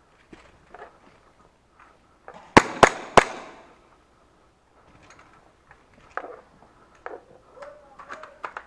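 Three sharp cracks in quick succession, with a short echoing tail, among fainter scattered clicks and knocks.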